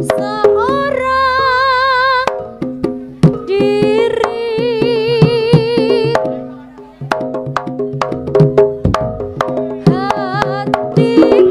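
Live jaranan gamelan music: sharp hand-drum strokes and sustained ringing metallophone tones under a high, strongly wavering melody line. The music thins out briefly a little past halfway, then comes back in.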